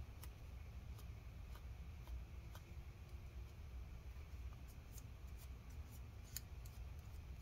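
Faint, scattered light clicks and small scrapes of hands handling small metal laptop parts, over a low steady hum.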